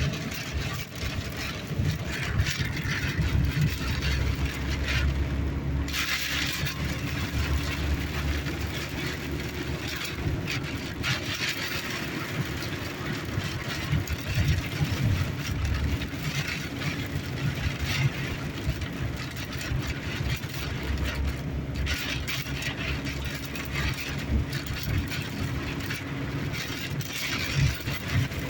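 Car cabin noise: a steady low engine and road rumble, with stretches of hiss that swell and fade every few seconds.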